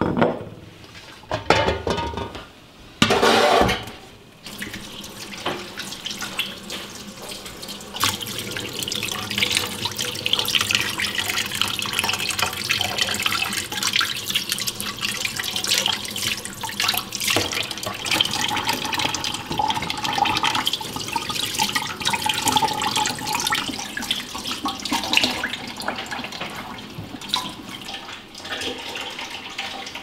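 Tap water running into a stainless-steel kitchen sink while raw chicken drumsticks are rinsed by hand under it, with two short, louder bursts of splashing or handling in the first few seconds.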